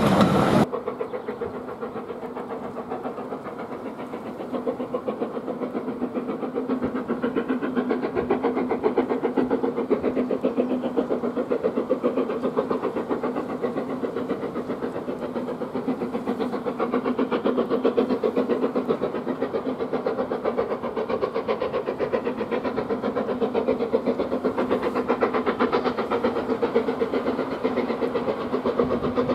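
BR Standard Class 4MT steam locomotive 75078 chuffing as it hauls a train, growing louder over the first several seconds as it approaches and then holding steady. It opens with a short, louder burst from a passing train.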